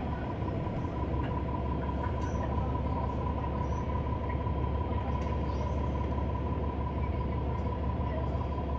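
Cabin noise inside a New Flyer XD40 transit bus: the Cummins L9 diesel engine's steady low rumble, with an even hum and a constant high thin whine over it.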